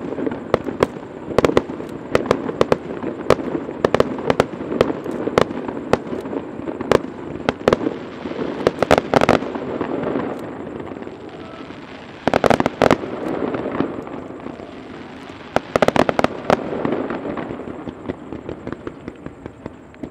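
Fireworks display: many sharp bangs and pops in quick succession over a continuous rumble. Dense volleys come about nine, thirteen and sixteen seconds in, then the bangs thin out toward the end.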